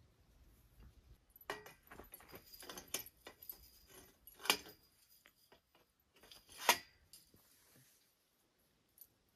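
Metal tent-frame poles clinking and rattling as they are handled and fitted together, a run of sharp metallic clanks with two louder strikes, about halfway through and again some two seconds later.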